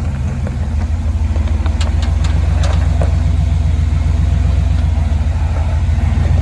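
Jeep engine running steadily at low revs while crawling over rock, with a handful of sharp clicks about two seconds in.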